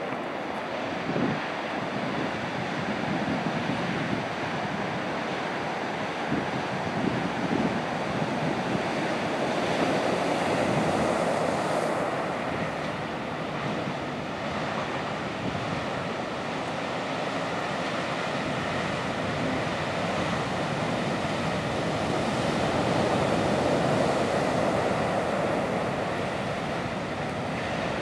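Heavy ocean surf breaking on a sandy beach: a continuous rush of waves that swells louder about ten seconds in and again past the twenty-second mark.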